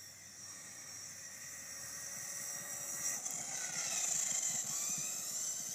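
High RC car motor whining, growing louder as the car approaches and passing close about four seconds in, its pitch falling as it goes by.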